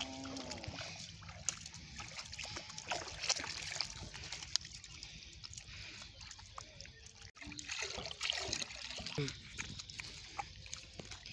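Barefoot feet splashing and squelching through shallow muddy water and soft paddy mud, with many scattered short splashes and slaps.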